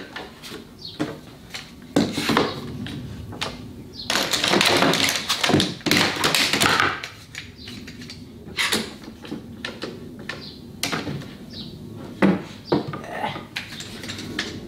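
One-handed trigger bar clamps being set along a glued rail and squeezed tight, giving irregular ratcheting clicks and knocks of the clamp heads on wood, busiest from about four to seven seconds in.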